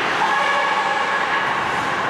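A held, steady tone made of several pitches at once, lasting about a second and a half, over the constant noise of an ice-hockey game.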